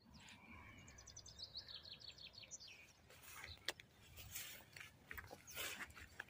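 A small songbird gives a rapid run of high chirping notes lasting about two seconds, then faint rustling and light footsteps through grass.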